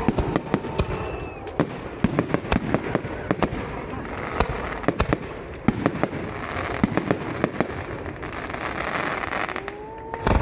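Tezutsu hanabi, hand-held bamboo tube fireworks, spraying sparks: a steady rushing hiss, fuller in the second half, with many sharp crackling pops throughout.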